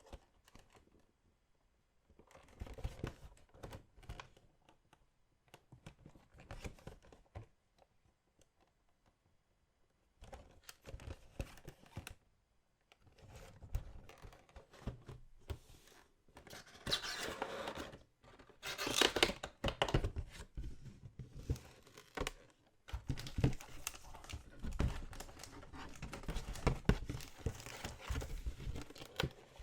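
Trading-card packaging being torn open and crinkled by hand. It comes in short crackly bursts with pauses at first, then runs louder and almost without a break in the second half.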